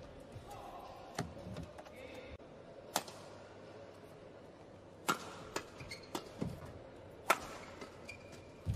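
Badminton rally: sharp racket strikes on the shuttlecock every one to two seconds, with short shoe squeaks on the court floor and a few low thuds of footfalls.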